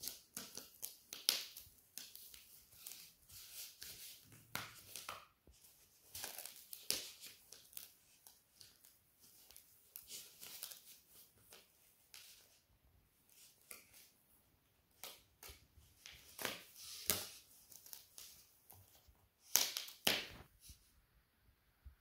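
A puppy chewing and gnawing on a foam sponge: irregular crackling, scraping crunches, with the loudest pair about two seconds before the end.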